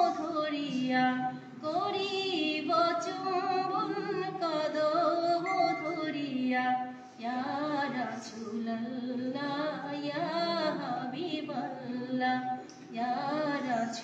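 A woman singing an Islamic ghazal solo and unaccompanied. She holds long notes that bend and waver in pitch, with short breaks between phrases.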